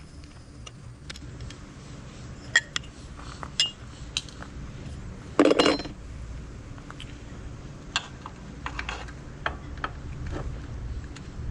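Scattered clicks and light clinks of hands working the battery wiring and bullet connectors under an e-bike's down tube, with one louder, longer clatter about five and a half seconds in.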